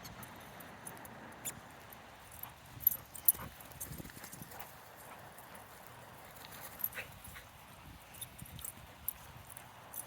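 Dogs running and playing, heard as scattered light taps and clicks, the sharpest a few seconds in.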